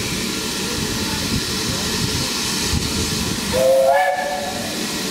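Steam locomotive hissing steadily, then giving one short whistle blast, about a second long, about three and a half seconds in: its departure whistle.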